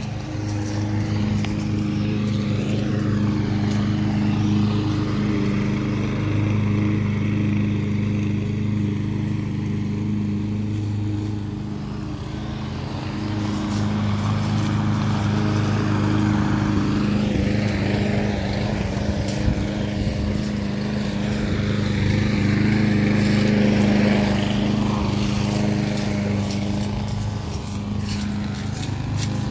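Small petrol engines of a walk-behind lawn mower and a brush cutter running steadily under load while cutting grass. The hum eases slightly about twelve seconds in, then picks up again.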